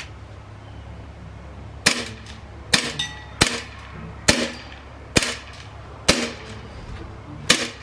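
Umarex Beretta M9A3 CO2 blowback BB pistol fired seven times in single shots, a little under a second apart, each a short sharp pop.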